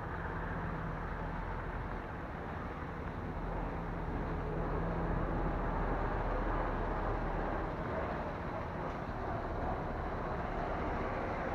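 Steady low rumble of vehicle engines and traffic, with a low engine hum that fades out about halfway through and the overall noise swelling a little around the middle.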